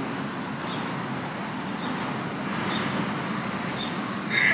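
Steady road traffic noise from passing cars, with a laugh starting right at the end.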